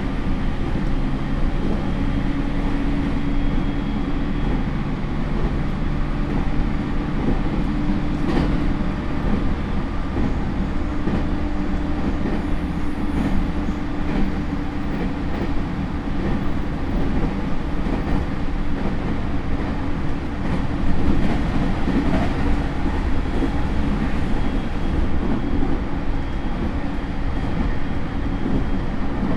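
JR East E231 series electric train, heard from inside its motor car at speed: a steady wheel-on-rail rumble with a constant traction-motor hum and a sharp click about 8 seconds in.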